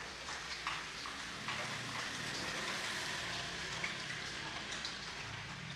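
Scattered light clicks of small parts and tools being handled, over a steady hiss.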